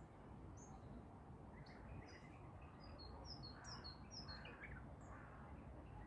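Small songbirds chirping faintly, with scattered short high notes and, about halfway through, a quick run of alternating high and slightly lower notes, over a steady low background rumble.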